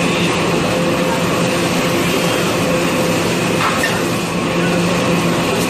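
Automatic tissue-roll bundling and packing machine running: a steady mechanical din with a constant hum, and a single click about two-thirds of the way through.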